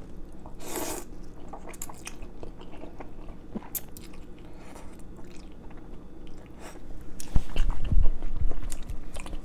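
A person slurping noodles about a second in, then chewing with small wet clicks and smacks. A few low thumps near the end are the loudest sounds.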